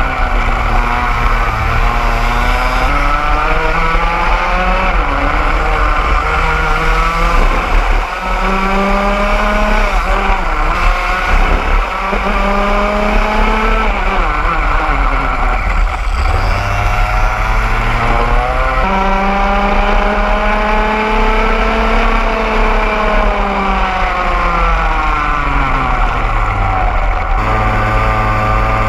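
Racing kart's two-stroke engine at race pace, its pitch climbing as it revs out and dropping off again several times in a row as it brakes for corners and accelerates away.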